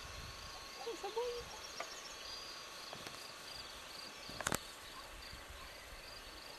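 Insects chirping steadily in the grass, with a short wavering note about a second in and a few sharp clicks, the loudest a quick pair about four and a half seconds in.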